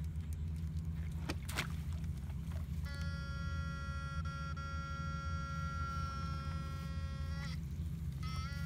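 Backpack electrofishing unit humming low, with a couple of clicks about a second and a half in. A high, steady whine of several tones comes on about three seconds in as the electrode poles shock the water. It cuts off about a second before the end, then comes back with a quick rising pitch.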